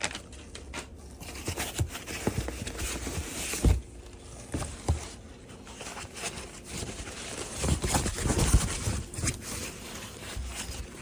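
Packaging being handled and opened: rustling, scraping and tearing, with scattered knocks.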